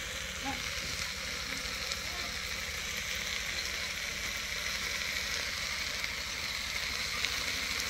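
Green leafy vegetables (saag) sizzling steadily as they fry in oil in a metal pot over a wood fire, cooked to the point of being ready.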